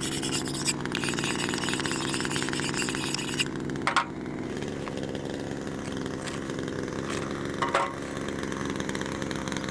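Chainsaw running and cutting firewood, its teeth biting through the wood for about the first three and a half seconds, then running on at a steady speed; two short knocks, about four and eight seconds in.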